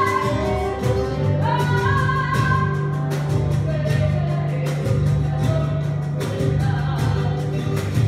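Live tango music: a voice sings a melody with gliding held notes over guitar accompaniment, sustained bass notes and a steady beat.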